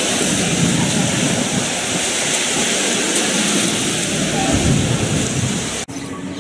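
Steady roar of a crowded bathing beach: small waves breaking and the voices of many bathers blended into one loud noise. It cuts off abruptly near the end, giving way to much quieter outdoor background.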